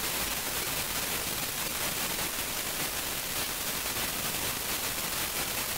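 Steady hiss of the recording's background noise, even and unchanging, with no other sound.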